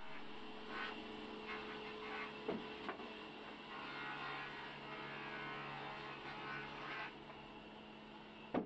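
Large sawmill band saw running with a steady electric hum, its blade not cutting, while wooden boards are handled on its steel table. A few short wooden knocks, the loudest near the end.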